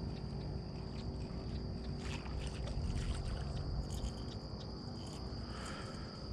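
Steady high-pitched insect drone, like crickets in the marsh grass, over a low rumble, with a few light clicks and knocks about two seconds in and again near the end.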